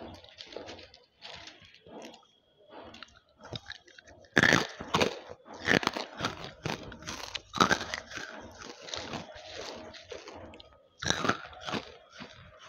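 Banslochan (tabasheer, the hard chalky bamboo silica) being bitten and chewed close to a headset microphone, in short crisp crunches. The crunches are soft at first, loud and rapid from about four seconds in, with another loud burst near the end.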